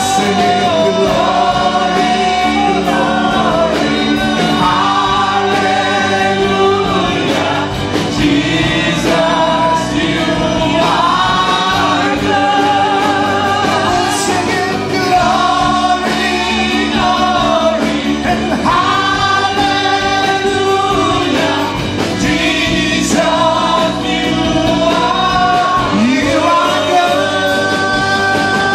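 Live contemporary worship music: several singers, men and women, singing a praise song together into microphones over a full band.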